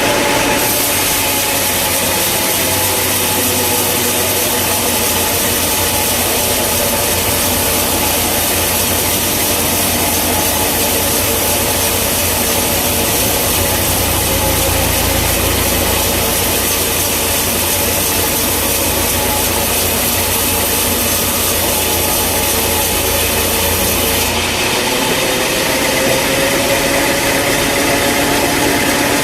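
Engine-driven sawmill saw cutting through a log. The engine's pitch sags under the load of the cut, and a hiss of the blade in the wood lasts until the cut ends about four-fifths of the way in, when the engine picks back up to speed.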